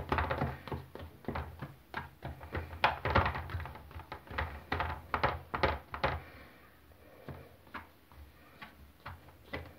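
A fork pricking a hot, freshly baked chocolate cake in a metal springform pan, about three quick taps a second, thinning out after about six seconds. The holes are being made so the cake soaks up its sauce.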